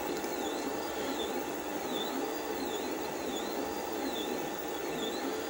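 Tevo Black Widow 3D printer running a print: its stepper motors whine in a regular cycle, rising and falling in pitch a little more than once a second, over a steady fan hum.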